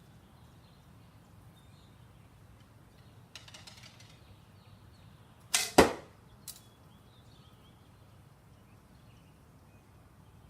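A single bow shot from a bow with an epoxy-repaired cracked limb: a brief rattle about three and a half seconds in, then two sharp cracks about a quarter of a second apart near the middle, the second louder, and a small click just after. The repaired limb is giving way and starting to buckle.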